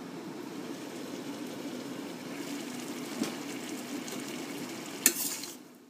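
Mince, vegetable and stock mixture simmering in a wok, a steady bubbling over a low hum, with one sharp clack of cookware about five seconds in.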